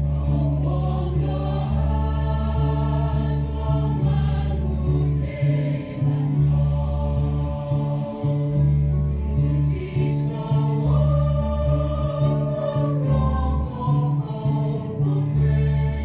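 Music with choir-like singing voices drawn out over long, deep bass notes that change every second or two.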